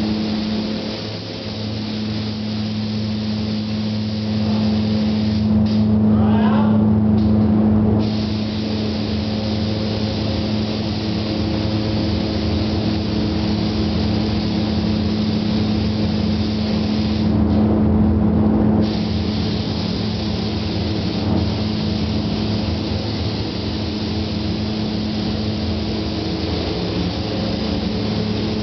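Steady hiss of a paint spray gun laying down clear coat, over a steady low machine hum. The upper part of the hiss thins out twice, for a second or two each time.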